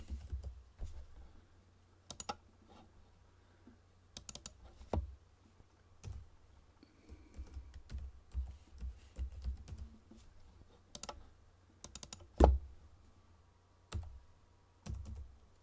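Typing on a computer keyboard: irregular short runs of keystrokes with pauses between them. One sharp click about twelve and a half seconds in is the loudest.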